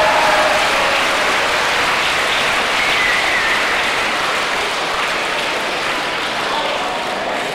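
Audience applauding steadily, the clapping slowly dying down.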